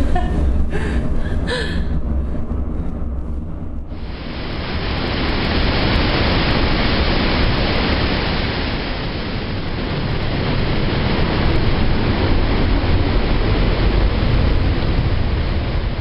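Trümmelbach Falls, a waterfall crashing into a rock pool inside the gorge: a loud, steady rush of water that starts abruptly about four seconds in. It is preceded by a lower rumble.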